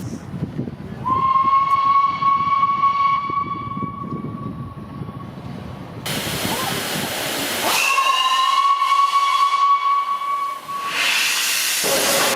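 Steam locomotive whistle blown twice: one high, steady note held for about four seconds, then, over a loud hiss of steam that starts about six seconds in, a second blast of about three seconds. Another blast begins at the very end.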